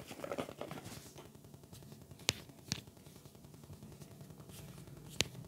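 Three short, sharp clicks or knocks in a quiet room: two about half a second apart a little over two seconds in, and one more near the end.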